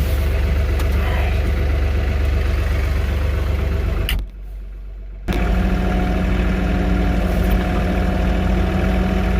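Petrol engine running steadily and loudly, dropping away for about a second a little past the middle, then running on at an even pitch.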